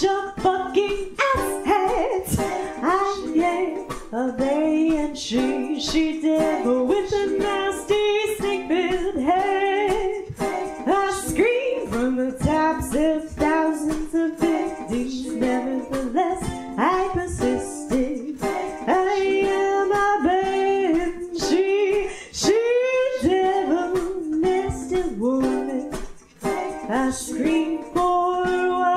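A woman singing over ukulele accompaniment, continuous song.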